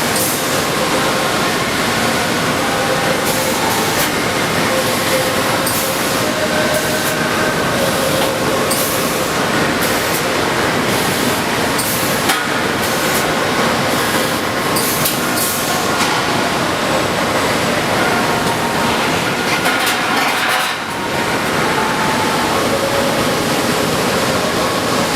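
Robotic spot welding cell running: a steady industrial machine noise with faint whines that shift in pitch, broken by many short hissing bursts.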